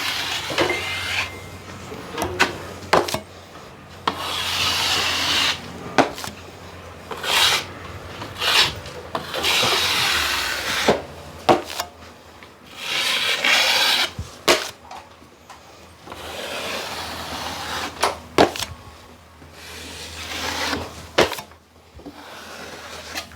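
Steel drywall blade scraping a coat of setting compound smooth over a taped patch, in a series of long strokes a second or two each, with sharp taps and clicks of the blade between strokes.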